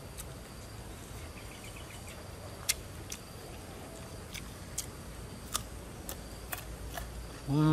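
Several sharp, crisp clicks spread over a few seconds as raw palm heart dipped in red chili sauce is eaten, over a steady outdoor hiss; near the end, a man's short loud hummed 'mmm' that drops in pitch as it stops.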